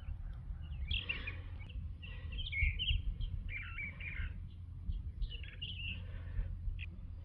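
Birds chirping in short scattered calls, over a steady low rumble.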